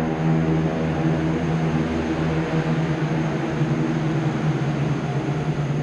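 A steady low mechanical drone with a hiss over it. Its higher overtones thin out about two seconds in.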